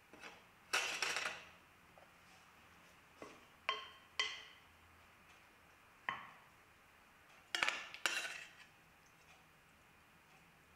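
Metal serving spoon clinking and scraping against a stainless steel pan and a glass mixing bowl while bolognese sauce is scooped onto cooked macaroni: a series of separate clinks, several with a short ring.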